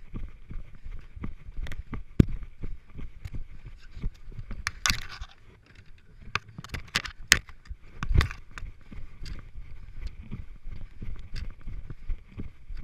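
A runner's footsteps heard from a body-worn camera, about three steps a second, on a grass track. About halfway through comes a scrape, then hard knocks of shoes on wooden planks as he crosses a wooden obstacle, and a heavy thump as he lands off it before running on.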